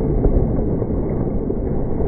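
Whitewater rushing and splashing around a raft, slowed down with slow-motion footage into a deep, muffled rumble.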